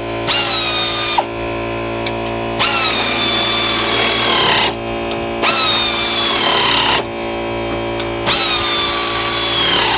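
Pneumatic air ratchet running in four bursts as it drives bolts down tight. Each burst is an air hiss with a whine that drops in pitch as the bolt seats. A steady low hum sits underneath.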